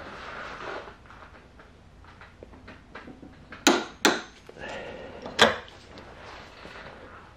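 Click-type torque wrench set to 66 foot-pounds, tightening a motorcycle fork damper assembly and clicking as it reaches torque. Two sharp clicks come close together a little over three and a half seconds in, and a third follows about a second and a half later, with light tool handling around them.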